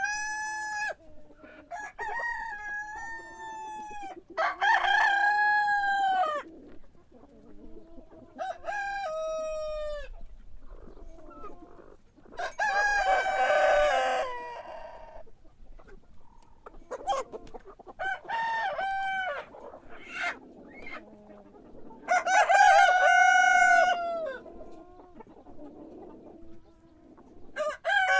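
Rooster crowing again and again, one crow every few seconds, some loud and some fainter.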